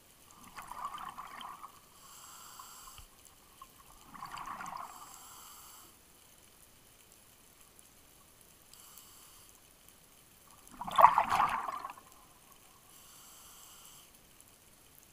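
A scuba diver breathing through a regulator underwater. Exhaled bubbles burble out three times, the loudest burst about eleven seconds in, with quieter inhalation hisses in between.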